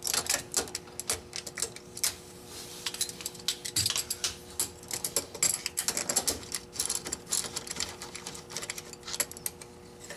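Socket ratchet on a long extension clicking in quick irregular runs as a 12 mm bolt is backed out.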